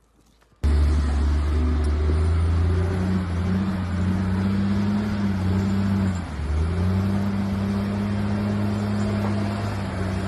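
A motor vehicle's engine running steadily with a low hum, starting suddenly about half a second in; its pitch dips briefly about six seconds in, then settles again.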